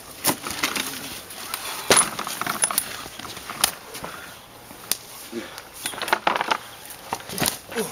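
Wrestlers grappling and scuffling, with irregular sharp slaps and knocks from hands, feet and bodies, and some voices.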